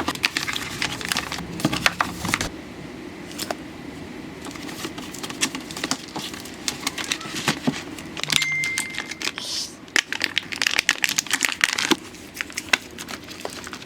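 Dense, irregular clicking, tapping and crinkling of small objects and packaging being handled, with a brief high steady tone a little over eight seconds in.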